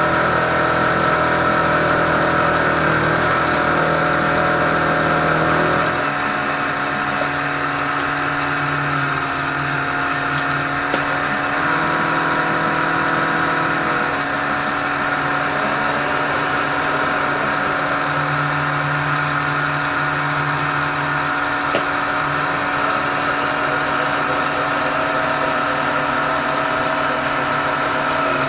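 Vertical milling machine running steadily, its end mill cutting along the side of a 1018 steel block, with the motor's hum under the hiss of the cut. The sound shifts a little and gets slightly quieter about six seconds in.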